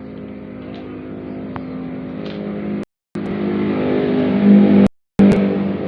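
A steady mechanical drone that grows louder, cut off abruptly several times.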